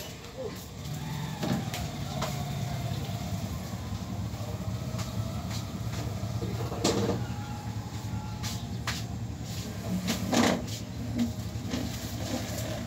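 A steady low mechanical hum with scattered knocks and clatters, the loudest about seven and ten and a half seconds in.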